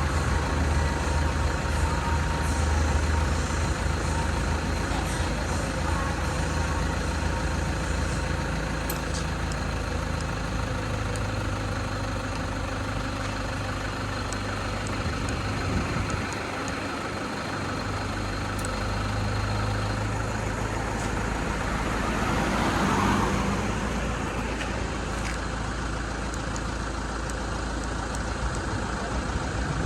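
Motor vehicle engine idling steadily, with a broad swell of traffic-like noise that builds and fades about two-thirds of the way through.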